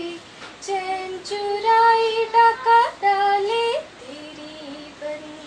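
A woman's voice singing a Hindi devotional song to Krishna in long held notes, rising at the end of a phrase and then falling back to a quieter held melody about four seconds in.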